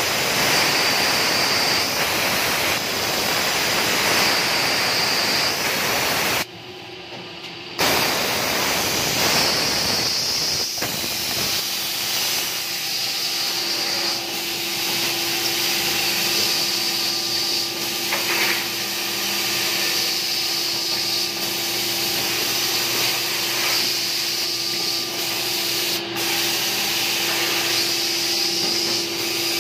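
Automatic edge banding machine running: a steady whirring hiss from its motor-driven trimming units. The sound drops out briefly about six seconds in, and a steady hum joins about eleven seconds in.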